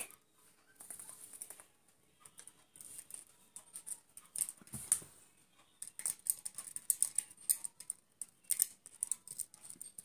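Light clicking and tapping from a budgerigar's beak and feet on a small glass mirror as it pecks at its reflection with a thin stick in its beak. The taps are scattered at first and come thick and fast in the last few seconds.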